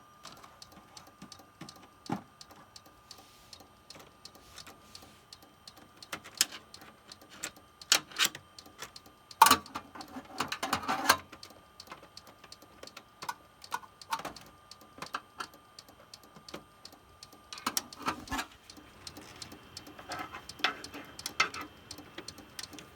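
Screwdriver poking and scraping inside a desktop computer's case: scattered metal clicks and clattering rattles, densest about ten and eighteen seconds in, over a faint steady whine from the running machine, which has a clicking fault.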